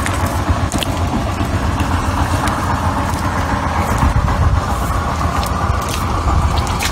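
A steady engine-like drone runs throughout, with a few faint knocks.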